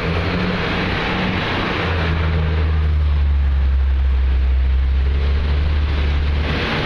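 Union Pacific freight train passing close by: a steady rumble of wheels on rail, with the deep, steady drone of a diesel locomotive engine from about two seconds in until shortly before the end.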